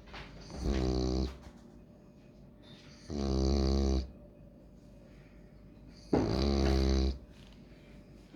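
French bulldog snoring in its sleep: three loud, pitched snores, each about a second long, coming about every three seconds.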